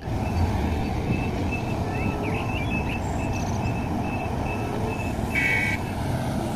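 Heavy diesel machinery, a large Komatsu hydraulic excavator loading a Komatsu HD465 haul truck, running with a steady low rumble. A high warning alarm beeps in an even pulse about two to three times a second, and a short higher tone sounds about five seconds in.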